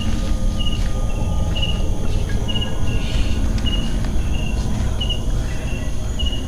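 A night insect chirping in short, high chirps, about one and a half a second, evenly spaced, over a steady low rumble.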